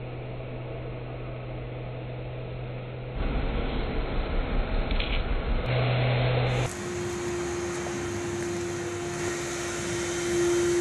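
Steady machine hum over background noise, changing abruptly several times: a low hum, then louder uneven rumbling for a few seconds, then a steady higher-pitched whine with hiss.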